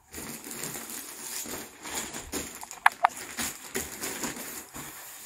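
Rustling and light knocking of jackets and hangers being handled, with a quick pair of short squeaks about three seconds in.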